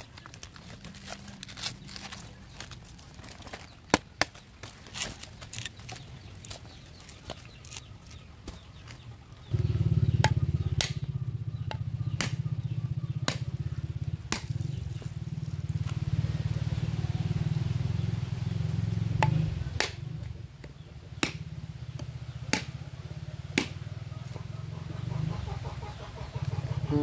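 Coconut husk being torn off by hand with crackling fibres, then a bolo knife striking a husked coconut again and again with sharp knocks about a second apart, cracking the shell open into halves. A steady low hum comes in about a third of the way in and holds under the strikes.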